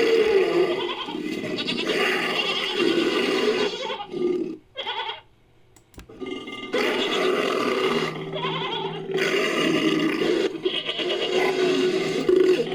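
Designed creature sound effect built from layered animal calls, bleating mixed with roaring. There is a brief break about five seconds in.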